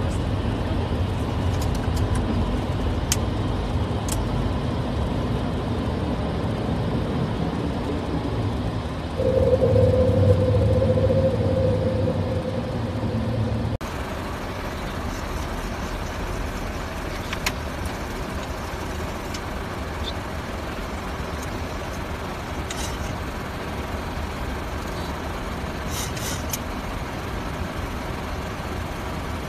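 Boeing 737 flight-deck noise: a steady rumble with low hum on the takeoff roll, growing louder with a humming tone for a few seconds about nine seconds in. It then cuts off abruptly to a quieter, even rush of air in flight, with a few faint clicks.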